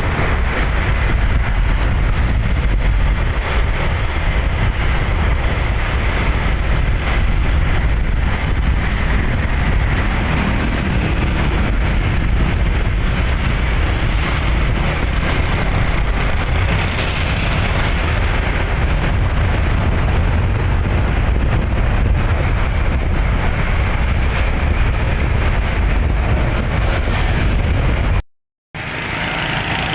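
Steady wind buffeting on the microphone with road noise from travelling at speed, and no horn tune heard. The sound drops out for a moment near the end, then comes back.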